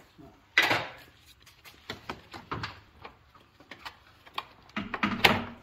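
Hard plastic panel over the grille clattering and knocking as it is worked loose and pulled free, with a louder clatter about half a second in and again near the end, and light clicks between.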